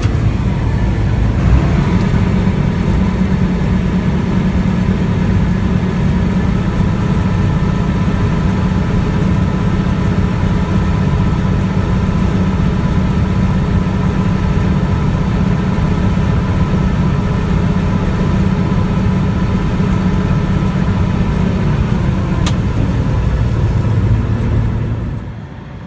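Massey Ferguson 750 combine's Perkins 354 six-cylinder diesel and threshing machinery running steadily, with a steady whine over the engine, while the unloading auger empties purge soybeans into a wagon. The sound drops off sharply about a second before the end.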